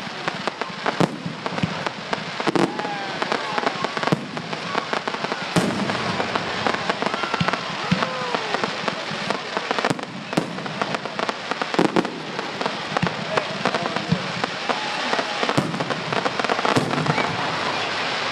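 Fireworks display: a steady run of bangs, one to three a second, over continuous crackling, with voices faintly in the background.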